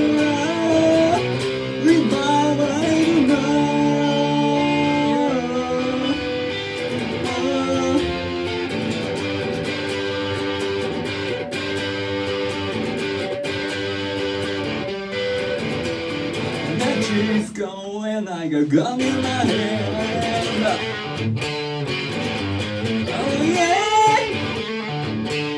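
A man singing while playing a Telecaster-style electric guitar.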